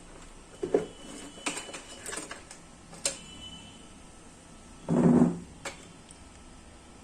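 Small objects being handled on a workbench: several sharp clicks and knocks, and a louder dull thump about five seconds in.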